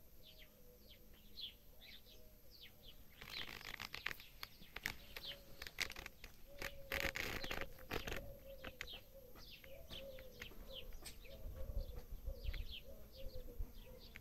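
Small birds chirping over and over in short, falling chirps. A stretch of rustling, flapping noise rises over them for a few seconds starting about three seconds in.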